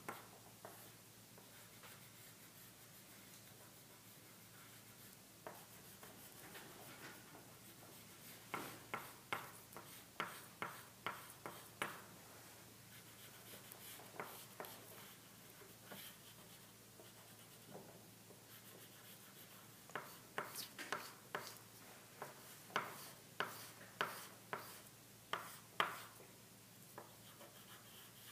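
Chalk scratching on black paper in short, quick strokes as white highlights are shaded in. The strokes come in two runs, one around the middle and one near the end, with quieter stretches between.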